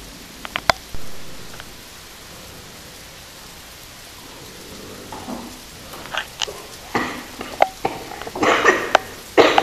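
Faint room hiss with a few small clicks and a knock. From about six seconds in comes a run of short coughs and splutters from a woman, more closely spaced near the end.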